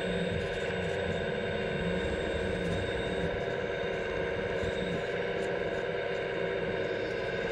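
Hydraulic pump of an RC model Liebherr A918 excavator running steadily with a droning whine while the boom swings the grapple saw.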